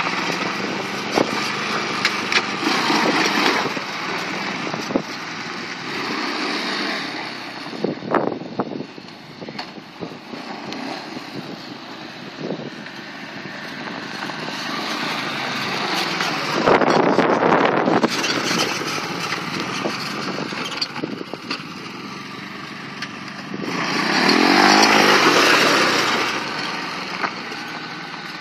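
Small quad bike (ATV) engine running as it is ridden, its revs rising and falling with the throttle. It gets louder about two-thirds of the way in and again near the end, where the pitch sweeps up and back down.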